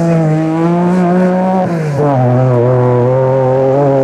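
Racing car engine at full throttle on a sand track, its note climbing steadily for nearly two seconds, then dropping sharply at an upshift and holding steady as it pulls on.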